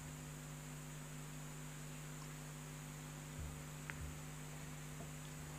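A low, steady electrical hum over faint hiss, with a couple of faint soft bumps about three and a half to four seconds in.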